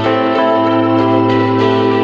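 Background music: sustained ambient instrumental notes with a guitar-like tone, the chord changing about a second in.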